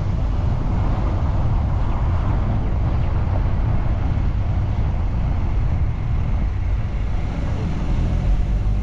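Steady low rumble of a moving vehicle: engine and road noise heard from the vehicle during a ride.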